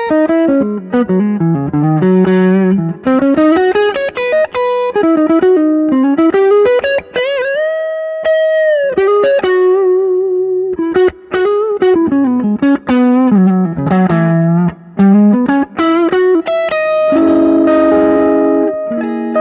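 Perinetti Sc1 V2.0 electric guitar with PAF-style humbuckers, played through an Axe-Fx modeller: fast single-note lead runs, with a note bent up and held around eight seconds in, then sustained ringing chords near the end.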